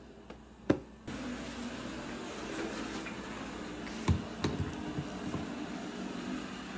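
Plug pushed into a wall outlet, clicking sharply a few times about four seconds in, over a steady machine hum that starts about a second in just after a single sharp click.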